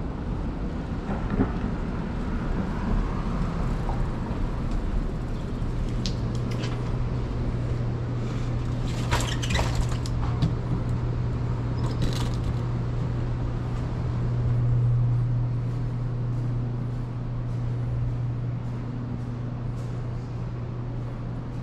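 A motor vehicle's engine runs with a steady low hum over continuous street noise. A few short, sharp sounds come in the middle.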